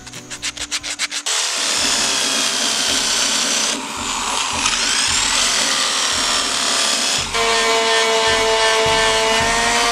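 A small wood block rubbed on sandpaper by hand in quick strokes, then a rotary power tool with a sanding disc running with a steady whine, its pitch dipping and rising again about four seconds in. About seven seconds in an electric palm sheet sander takes over with a steady hum.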